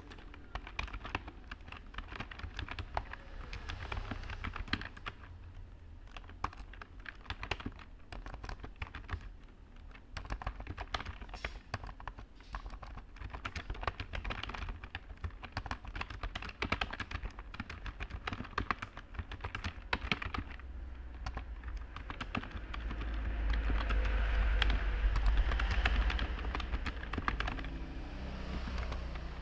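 Typing on a computer keyboard: a quick, irregular stream of key clicks. Under it runs a low background rumble that swells louder for several seconds near the end.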